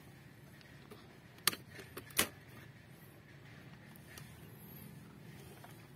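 Faint background hiss broken by two sharp clicks, about two-thirds of a second apart, the second the louder: handling noise from the brush cutter held by its harness strap.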